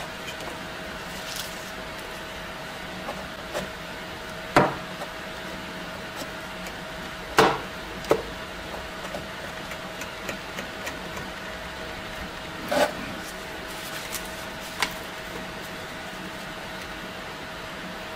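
A brush dabbing and spreading thick black paste on rusty bayonet steel, with a few sharp taps and clicks as it knocks the metal, the loudest about four and a half and seven and a half seconds in, over a steady low hum.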